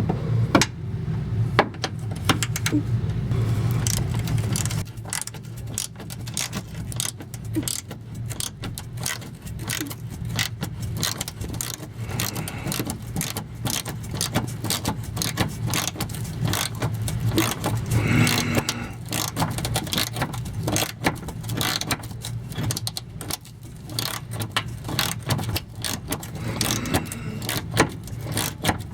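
Socket ratchet clicking in rapid, uneven runs as it loosens the fuel-tank strap bolts, over a steady low hum.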